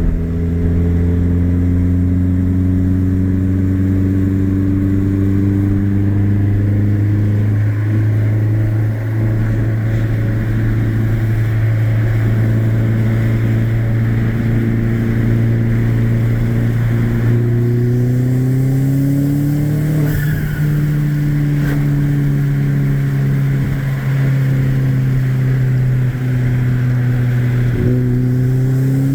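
Tuned Mini Cooper R56's turbocharged four-cylinder engine, fitted with a big K04 turbo and custom exhaust, running at steady revs. About eighteen seconds in it revs up and settles, with a brief turbo flutter chirp as the throttle closes. It starts to rev again near the end.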